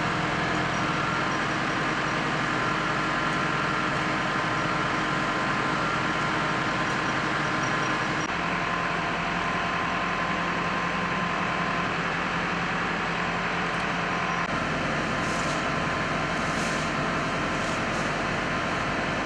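Feed-processing machinery running steadily: a loud motor drone with a steady hum, its tone shifting a little about eight and again about fourteen seconds in. A few light rattles near the end.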